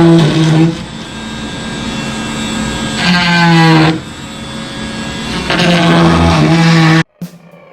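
Power tool trimming the edges of cured fibreglass panels: a loud, steady humming whine in three stretches, with quieter rough grinding between them. It cuts off suddenly near the end, where music begins.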